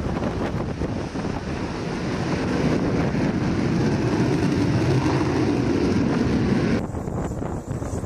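F-35B Lightning II jet engine at takeoff power as the jet leaves a ship's flight deck, with wind buffeting the microphone. The noise builds about a third of the way in and cuts off suddenly near the end, leaving a quieter rush.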